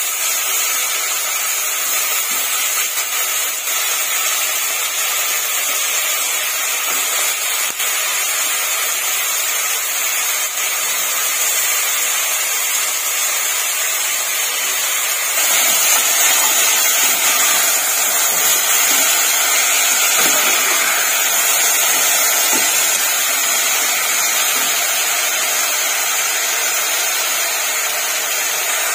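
Vegetables frying in oil in an aluminium pressure cooker over a gas flame, giving a steady sizzling hiss. It gets louder about halfway through, with faint crackles after that.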